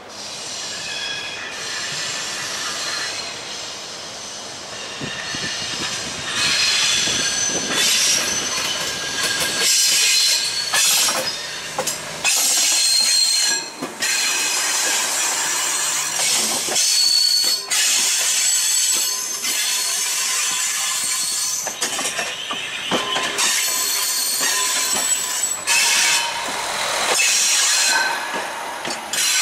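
Passenger multiple-unit train passing on a curve, its wheel flanges giving high-pitched squeals that come and go over the clatter of wheels on the rails. It grows louder about six seconds in as the cars draw alongside.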